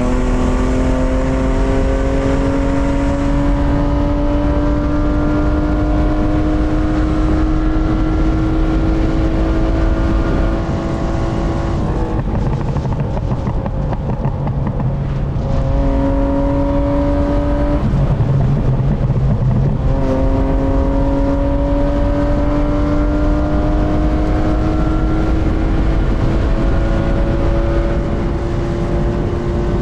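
BMW E36 323i's M52B25 2.5-litre inline-six pulling under load, its pitch climbing slowly and steadily. It drops away briefly about twelve seconds in and again around eighteen to twenty seconds, then climbs again.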